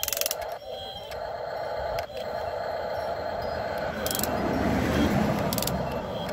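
Small electric motors of a 1:16-scale RC excavator whining as the boom and bucket move, with a few short high-pitched buzzes. The sound grows louder and rougher about four to six seconds in.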